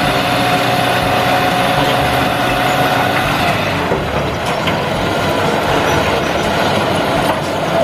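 Light dump truck's engine running under load to drive the hydraulic hoist as the bed tips and its load of soil pours out, with a thin steady whine over the engine for the first few seconds.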